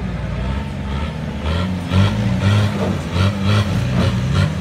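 Engine of a tube-frame 4x4 trial buggy revving in repeated short bursts, its pitch stepping up and down, as it claws over rocks under load.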